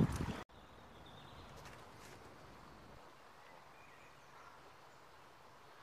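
A low rumble on the microphone cuts off abruptly about half a second in. Quiet outdoor ambience follows, with a few faint, sparse bird chirps.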